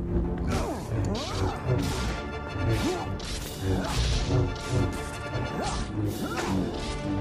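Lightsaber duel sound effects: blades swinging with humming swooshes and clashing repeatedly, about once a second, over film music with steady held notes.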